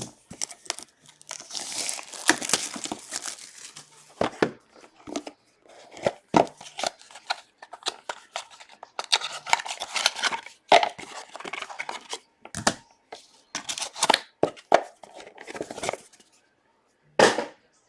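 Trading-card packaging being torn open and crinkled while cards are handled: a string of short rustles, tears and clicks.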